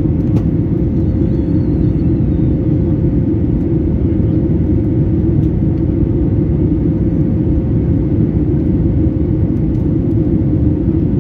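Boeing 737 MAX 8 cabin noise in flight: the steady drone of its CFM LEAP-1B turbofans and rushing air heard from a window seat, a deep even rumble with a faint steady hum above it, as the jet climbs through cloud.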